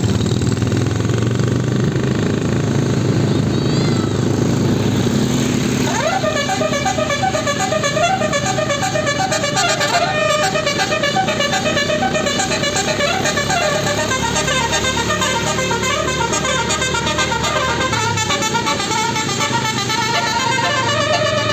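Bus engine rumbling, then about six seconds in a 12-note Basuri telolet horn starts playing, a fast melody of hopping air-horn notes repeated over and over.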